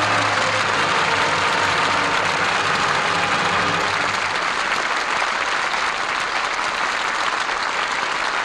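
Studio audience applauding steadily at the curtain of a live radio drama, in an old broadcast recording.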